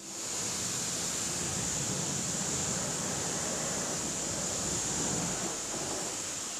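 Pressure washer spraying a steady jet of water over a car's paintwork and the wet ground: a constant hissing rush that cuts in suddenly at the start.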